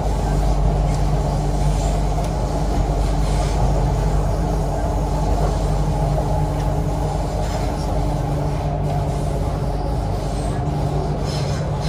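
An MTR Island Line Q-Train in motion, heard on board: steady running noise with a low, even hum, holding the same pitch throughout as the train runs at a steady speed.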